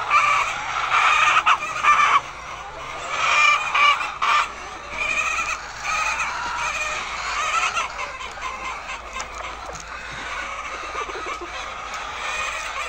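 A flock of laying hens clucking and squawking together, many calls overlapping. It is loudest in the first couple of seconds and again around four seconds in, then settles into a steadier, quieter clucking.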